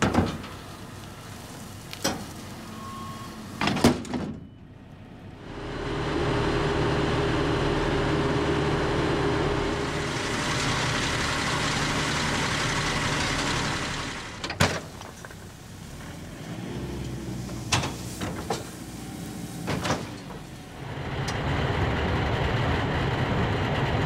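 Tractor engine running steadily with a Gehl 1475 round baler working behind it, louder in two long stretches. Several sharp clicks or knocks cut in between.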